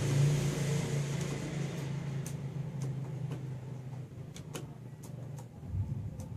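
A low, steady mechanical hum that fades away over the first few seconds, followed by a few sharp clicks.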